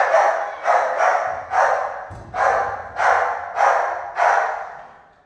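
A dog barking repeatedly, about eight loud barks at a steady pace of a little under two a second, each bark ringing briefly.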